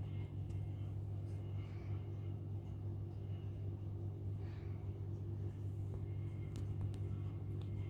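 A steady low rumble that does not change, with only faint, indistinct sounds above it.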